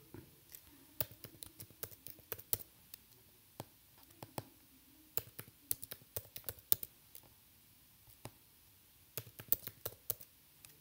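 Typing on a computer keyboard: clusters of quick keystrokes separated by short pauses, with a lull of about two seconds past the middle.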